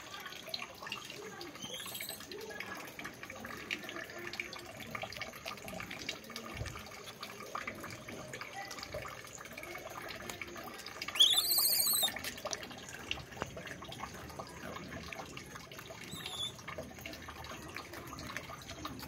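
Steady background noise like running or trickling water, with a bird's short high chirps a few times, the loudest run about eleven seconds in.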